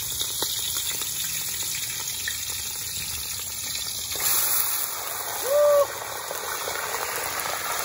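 Very hot oil in a frying pan hissing steadily, then sizzling louder from about four seconds in as raw meat is tipped into it. A brief high squeak just before six seconds is the loudest moment.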